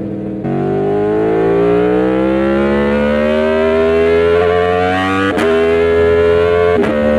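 Aprilia Tuono V4 1100 Factory's V4 engine accelerating hard under opened throttle, its pitch climbing steadily, then two quick upshifts about five and seven seconds in, each with a short snap and a sudden drop in pitch before it climbs again.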